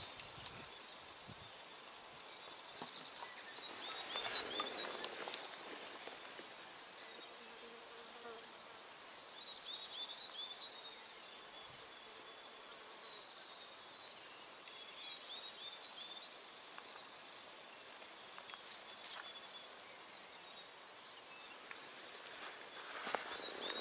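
High-pitched chirping calls in rapid trilled phrases, repeating every few seconds, with brief rustling noise about four seconds in and again near the end.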